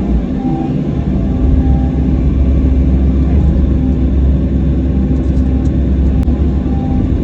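Excavator's diesel engine running steadily with a low rumble as it digs, with a few light clicks about five to six seconds in.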